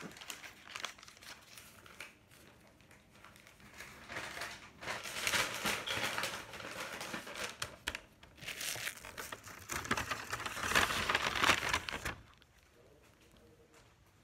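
Crinkling and rustling of a lunch bag and its wrapping being handled while a lunch is packed. It comes in two spells of a few seconds each, with a short lull between.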